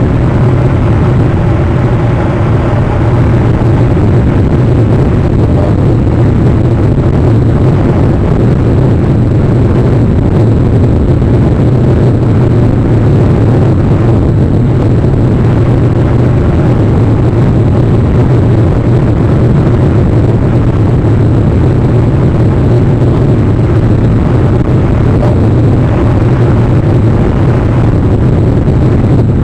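Loud, steady noise with a low hum underneath, unchanging throughout, with no distinct events.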